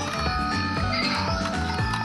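Background music with a steady beat and a melody of stepped notes.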